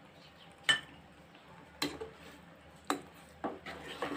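A steel slotted spoon clinking sharply against a pan about four times, roughly a second apart, then scraping and stirring through a thin kurma gravy near the end.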